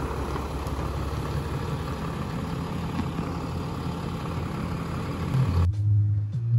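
Ram pickup truck's engine running with a steady low rumble. It cuts off suddenly near the end, and music with a bass line starts.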